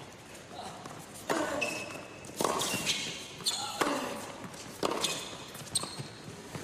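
Tennis rally on a hard court: sharp racket-on-ball strikes and ball bounces about once a second, with short high squeaks of shoes on the court between them.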